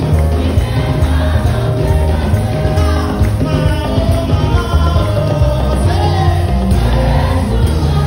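Live Benin (Edo) gospel praise music played loud over a church sound system: a lead singer on a microphone with the congregation singing along, over a steady pulsing bass beat.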